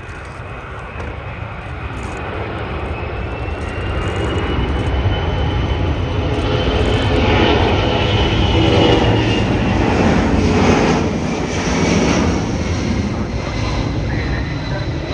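Military aircraft engines passing the crowd line, growing louder to a peak past the middle and then easing slightly, with a whine that rises and then falls in pitch.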